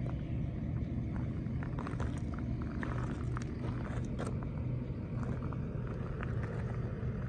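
A steady low engine-like hum, with scattered light crunches of footsteps on gravel.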